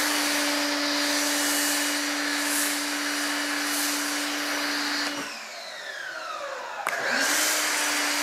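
Active 2.0 electric pressure washer running, with the hiss of a foam cannon spraying. The motor cuts off about five seconds in and its whine falls as it winds down, then a click near seven seconds and it runs again.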